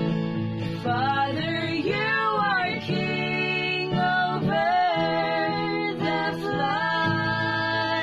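Female voices singing a worship song in long held notes, over a guitar accompaniment.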